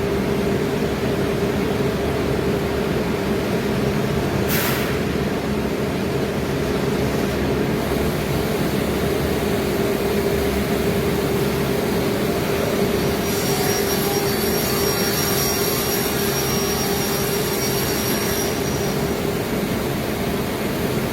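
CNC router cutting plywood: a steady machine drone with a constant hum. A thin high whine joins in for about five seconds past the middle.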